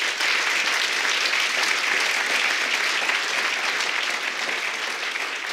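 Audience applauding: many hands clapping in a dense, steady wash that eases slightly near the end.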